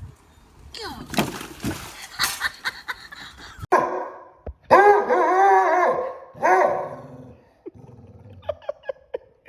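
A dog vocalizing in long, wavering whine-like howls: three calls between about four and seven seconds in, the middle one the longest and loudest. Before them come a few seconds of scattered knocks and rustling.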